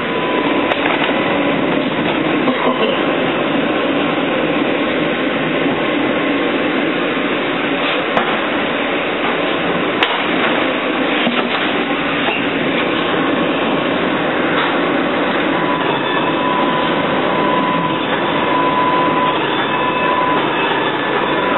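A streetcar on the Canal Street line, heard from inside the car as it runs along its rails with a steady rumble and rattle. There are a couple of sharp clicks about eight and ten seconds in, and a thin steady whine joins in the last several seconds.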